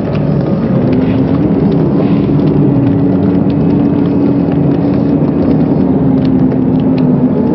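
Steady noise of a crowd in a bullring as men wrestle a bull on the sand, with a long steady tone held through most of it and a few sharp knocks.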